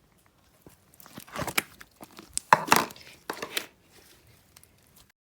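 Slime being squeezed and stretched by hand, giving irregular crinkly, crackling bursts that are loudest in the middle.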